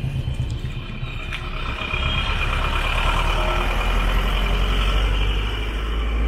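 A motor vehicle passing close by on the street, its deep engine rumble growing louder from about two seconds in, peaking near five seconds, then beginning to fade.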